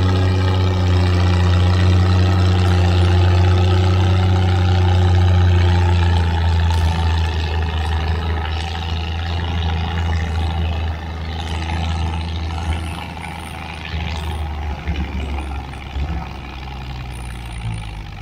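Antique farm tractor's engine running steadily under heavy load as it drags a weight-transfer sled, a deep steady hum that fades after about six seconds as the tractor pulls away down the track, with a few short knocks near the end.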